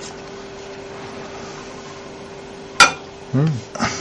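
A convection microwave oven hums steadily, with a sharp clack about three seconds in and a lighter knock near the end, as a graphics card is handled at the oven.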